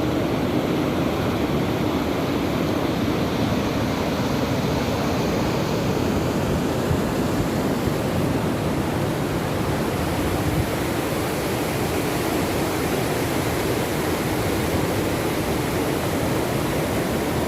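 Steady rush of water falling at a waterfall, an even roar with no change, cutting off suddenly at the end.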